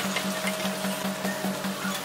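Whole chicken sizzling and simmering in 7UP in a wok, a steady hiss, with background music keeping a quick, even beat.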